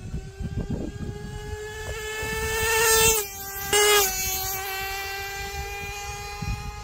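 Traxxas 4-Tec nitro RC car's small two-stroke glow engine screaming at high revs during a flat-out speed run. It grows louder as the car approaches, breaks off briefly as it passes about three seconds in, then carries on as a steady, slightly lower whine that slowly fades as the car moves away.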